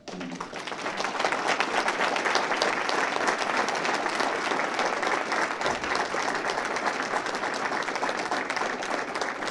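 Audience applauding, dense clapping that starts abruptly and builds to full strength within the first second.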